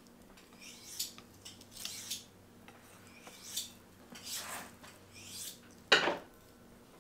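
Knife slicing silverskin off a cut of elk round on a wooden cutting board: a series of short scraping strokes, then a sharp knock about six seconds in, the loudest sound.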